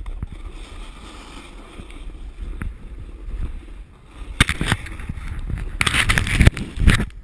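Snowboard sliding and scraping over icy, wind-crusted snow, with wind rumbling on the action-camera microphone. The scraping gets loud about four and a half seconds in and again from about six seconds as the rider falls on the ice and slides, then stops abruptly just before the end.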